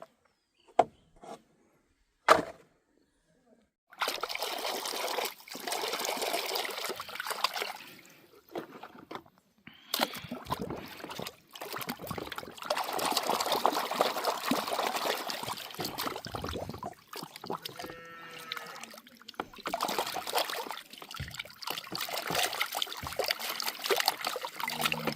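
Water trickling, sloshing and splashing in swells as toys are washed, after a few sharp knocks in the first seconds.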